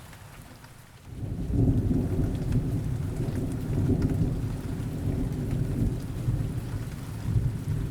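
Rain falling steadily, joined about a second in by a long, low rumble of thunder that swells in and keeps rolling.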